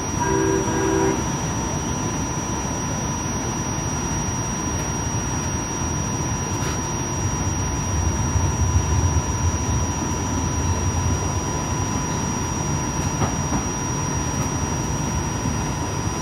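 RTA Blue Line light-rail car running on track: a steady low rumble of wheels and running gear that swells briefly midway, with a steady high whine throughout. A short, repeated pitched tone sounds right at the start.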